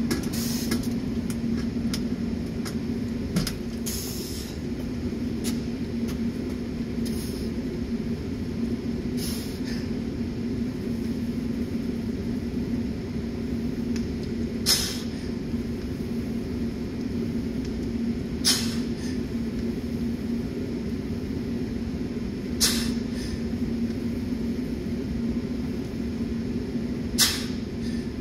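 Steady low machine hum, with four short sharp noises about four seconds apart in the second half, in time with a set of barbell back squats.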